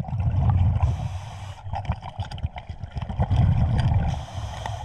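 Underwater scuba breathing heard through the camera housing: two long low rumbles of exhaled regulator bubbles, each ending in a short hiss of inhalation, with scattered sharp clicks of a dive knife scraping against rocks.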